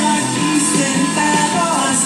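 Background music: a song with singing.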